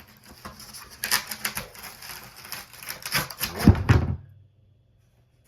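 Packaging being handled and pulled apart: crinkling, scratching and clicking, with a few heavier thumps near the end, then the sound cuts off suddenly about four seconds in.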